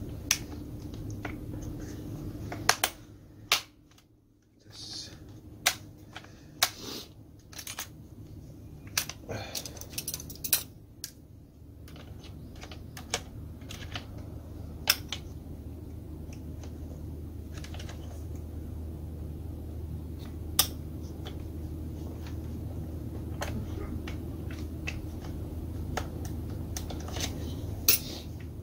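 Hand tools and small chainsaw parts clicking and knocking as the STIHL MS180C chainsaw's carburetor and covers are refitted with a screwdriver: scattered sharp clicks at irregular intervals. A steady low hum runs underneath, a little stronger in the second half.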